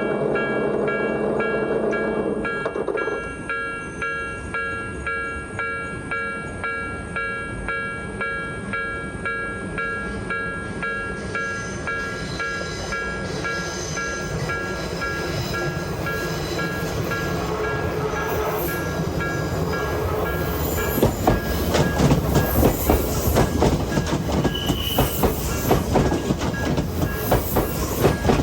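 Japanese level-crossing warning bell ringing in a steady, repeating pattern, over a low hum that stops about two seconds in. From about twenty seconds in a train passes over the crossing, its wheels clacking over the rail joints louder than the bell.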